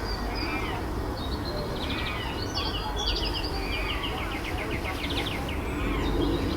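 Small birds chirping and singing, with fast trills of rapidly repeated high notes, over a steady outdoor background hum.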